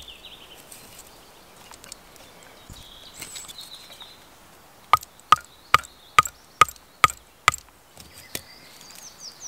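A small axe hammering a metal spiked candle holder down into a wooden stump: about seven sharp blows in quick succession, a bit more than two a second, each with a short metallic ring.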